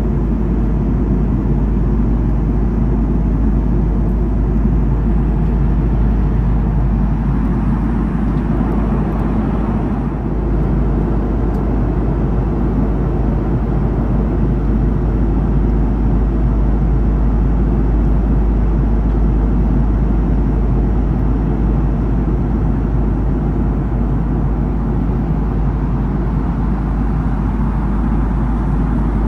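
Steady low rumble and rush of an Airbus A330's engines and airflow heard from inside the passenger cabin, with no change in pitch or level.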